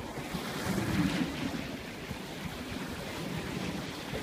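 Sea waves washing, with wind buffeting the microphone; a louder rush swells about a second in.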